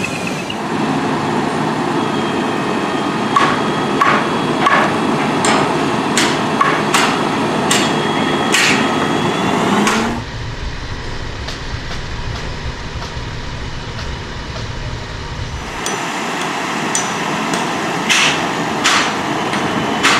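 Hammer blows at a wooden roller coaster construction site: irregular single strikes, some ringing with a metallic tone, over steady background noise. Midway the hammering stops for several seconds while a low rumble takes over, then the strikes resume.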